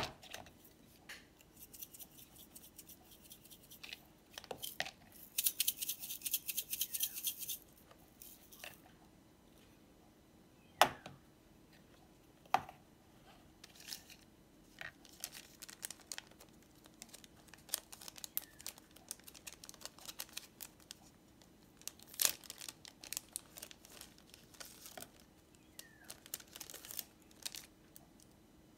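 Plastic blister packaging of a slime kit crinkling and tearing as it is handled, with a run of sharp crackles and a few clicks; a longer, louder rustling tear comes about five seconds in.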